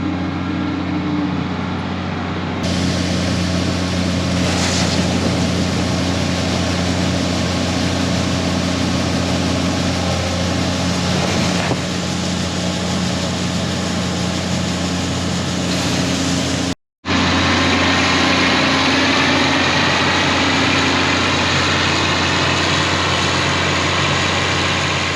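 Case IH 1680 combine running steadily: a loud, even diesel drone with a broad rush of machinery noise over it. The sound cuts out for a moment about two-thirds of the way through.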